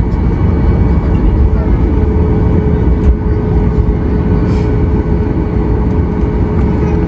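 Steady rumble of a Boeing 737 MAX 8's CFM LEAP-1B engines and airflow heard from inside the passenger cabin, with a steady hum coming in about a second and a half in.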